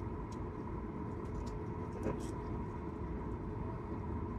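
Cabin noise of a Boeing 737 MAX 8 taxiing: a steady rumble of the engines at taxi power and the air conditioning, with a faint steady hum and a few faint clicks.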